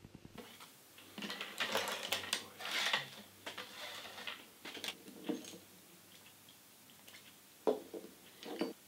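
Kitchen work: utensils and dishes clattering and scraping, with a couple of sharp knocks near the end.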